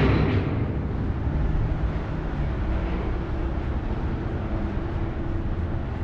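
Steady low vehicle rumble heard inside a long brick pedestrian tunnel, with a louder burst of noise dying away in the first half second.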